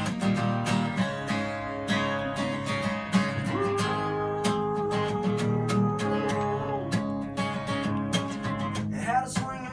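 Solo acoustic guitar strummed in a steady rhythm, an instrumental break in a country song.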